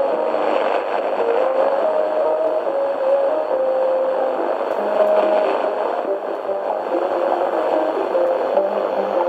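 Tecsun PL-398MP portable radio's speaker playing a shortwave broadcast on 6040 kHz from TRT Voice of Turkey: a slow melody of held notes under steady static hiss.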